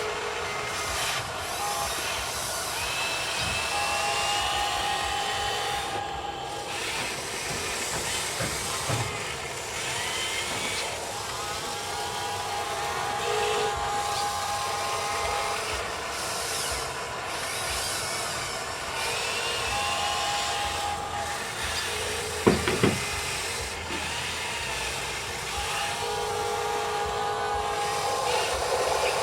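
Small electric motors of a radio-controlled hydraulic excavator and truck whining in repeated spurts of one to four seconds, some rising in pitch as they speed up, over a steady hiss. A sharp knock about 22 seconds in is the loudest sound.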